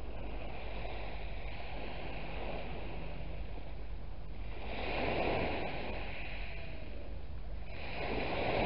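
Small waves breaking and washing up a shingle beach, a steady wash with two louder swells, about five seconds in and near the end.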